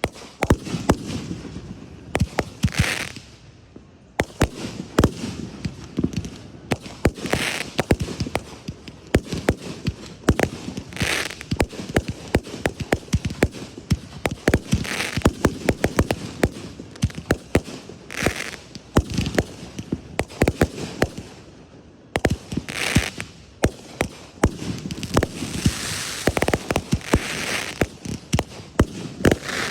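Fireworks display: a dense, continuous barrage of sharp bangs and crackling, with a hissing rush recurring every three to four seconds.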